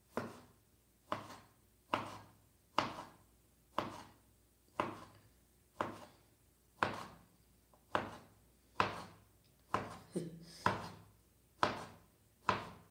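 Kitchen knife slicing hot dogs on a plastic cutting board: a sharp knock of the blade on the board about once a second, each cut a separate stroke.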